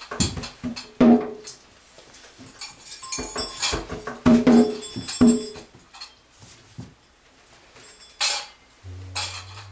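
A Vodou ritual hand bell shaken in irregular clusters of metallic clinks and rings. A low steady hum comes in near the end.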